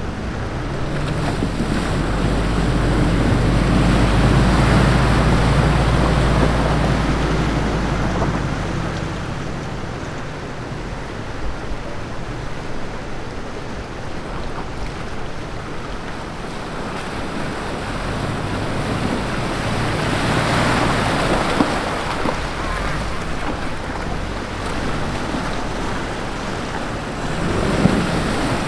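Four-wheel-drive trucks fording a shallow river, engines running under the rush and splash of water, with wind buffeting the microphone. A low engine drone is strongest in the first eight seconds. The splashing swells again about twenty seconds in.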